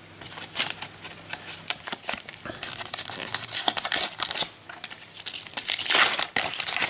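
A Panini sticker packet being torn open by hand, its wrapper crinkling and tearing in irregular bursts, loudest about halfway through and again near the end.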